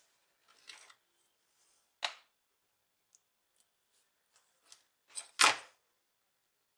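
Scattered light clicks and rustles of heat-shrink tubing and small parts being handled, with a sharper click about two seconds in and a louder brief rustle near the end.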